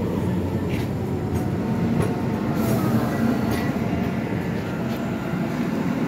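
Tram running along its rails close by: a steady low rumble.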